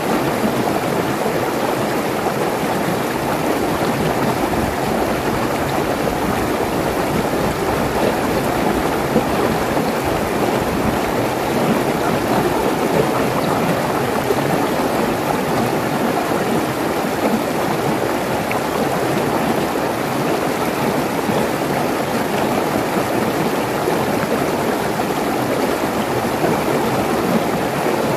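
Mountain stream rushing and splashing over rock ledges in a small cascade: a steady, unbroken rush of water.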